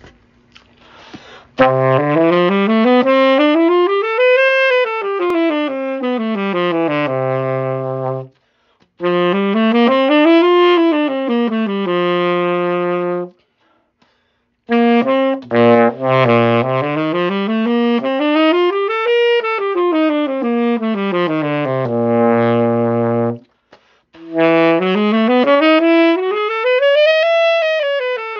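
Baritone saxophone playing scales: four runs, each climbing step by step and coming back down, with short breaks between them. The last run is still going at the end.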